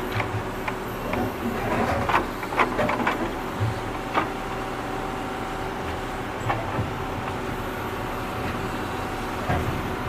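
Engine of a digging tractor running steadily under load, with a series of sharp metal clanks and knocks from the digging, clustered about two seconds in and scattered later.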